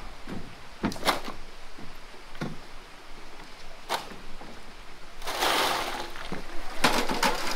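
Scattered hard knocks of stone on stone a second or more apart, a brief rushing clatter about five seconds in, then a quick cluster of knocks near the end: rocks being dropped and tipped onto a stone-filled road embankment.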